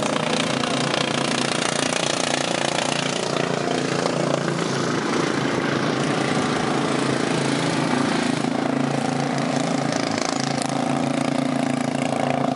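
Several racing lawn mowers' engines running together on track, a dense steady drone of overlapping engine notes whose pitches shift up and down.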